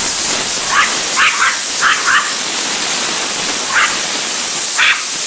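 A dog giving about seven short, high yips and whimpers over a loud, steady hiss.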